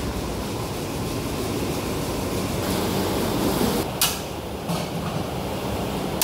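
Sharp click of a gas burner's knob igniter about four seconds in, with a softer click shortly after, over steady rumbling background noise.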